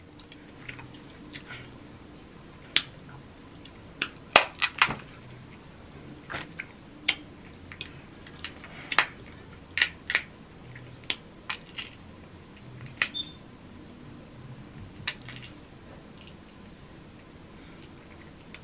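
Crab leg shells cracking and snapping as they are broken open and the meat is picked out by hand: irregular sharp snaps and clicks, close to the microphone.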